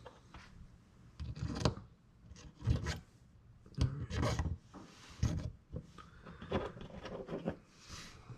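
Baitcasting reel parts being handled and fitted back together by hand: a series of short scrapes and clicks, several separate bursts with pauses between.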